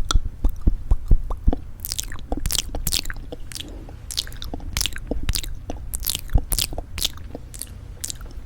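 Close-miked fingernails tapping on lipstick cases: an irregular stream of sharp taps and clicks, several a second, over a low steady hum.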